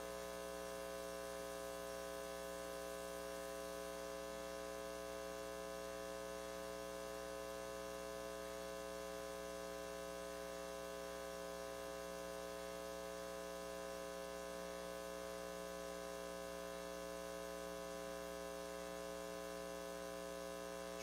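Steady electrical hum in the sound system: a constant buzz of many steady tones over a faint hiss, unchanging throughout.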